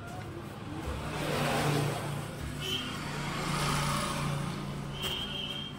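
A motor vehicle's engine running past, its hum and noise growing louder about a second in, swelling again near four seconds and easing off near the end, with a short high tone twice.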